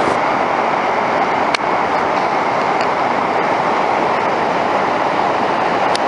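Steady roar of the Iguazú Falls in flood, a huge volume of water plunging over the brink, with one short click about a second and a half in.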